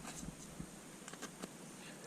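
Faint scattered clicks and light rustling from knife work and handling of an elk carcass being quartered.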